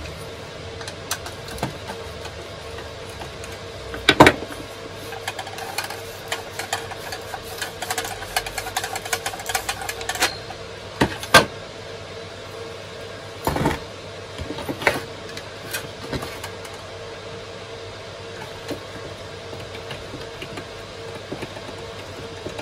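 Plastic and metal parts of an old weather-station sensor assembly being handled and unscrewed with a screwdriver: scattered clicks and taps with a few louder knocks, over a steady background hum.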